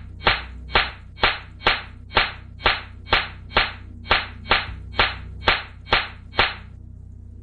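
A break in an electronic dubstep track: a clap-like percussion hit repeating about twice a second in a steady beat over a low held bass. The hits stop shortly before the full track comes back in.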